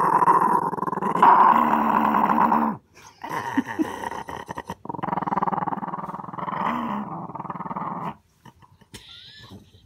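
A small dog growling in long, unbroken spells. The first lasts nearly three seconds, a choppier stretch follows, and another lasts about three seconds, stopping about eight seconds in.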